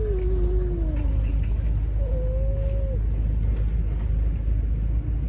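Stray cats yowling at each other before a fight: long drawn-out wavering howls, one sliding down in pitch and fading about a second and a half in, another about two seconds in lasting a second. A steady low rumble lies under them.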